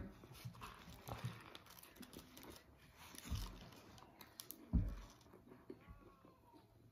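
Close-up chewing of a mouthful of double-meat bacon burger topped with fries: soft wet mouth sounds, with a few low thumps, the strongest about five seconds in.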